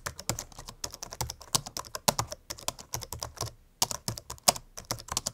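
Fast, irregular typing on a computer keyboard: a stream of key clicks with a short pause about two-thirds of the way through.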